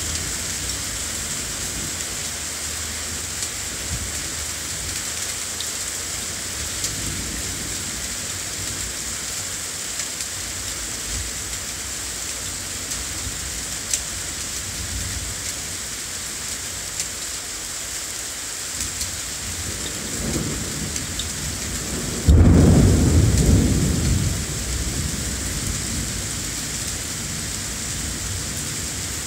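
Rain falls steadily throughout. Low thunder rumbles faintly at times. About 22 seconds in, a loud thunderclap breaks suddenly and rolls away over a couple of seconds.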